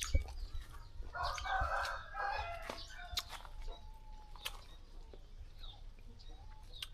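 A rooster crowing once, about a second in and lasting about a second and a half, with scattered sharp clicks around it.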